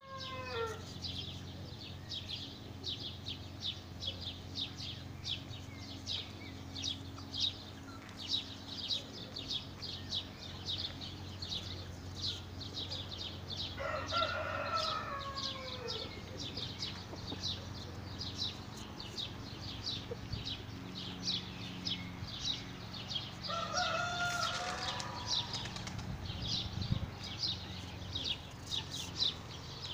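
A rooster crows twice, once about halfway through and again some ten seconds later, each crow falling in pitch at its end. Under it a small bird chirps steadily, about three short high notes a second, over a low steady hum.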